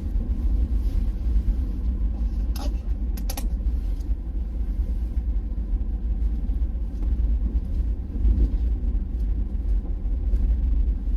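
Vehicle driving slowly over a rough, potholed gravel road, heard as a steady low rumble, with a few quick knocks or rattles a little over two and three seconds in.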